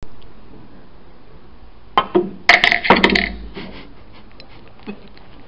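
Cue tip clicks sharply on a snooker ball about two seconds in, then a quick burst of clinks and rattles from coins, glasses and cups on the table lasts under a second. One more small click comes near the end.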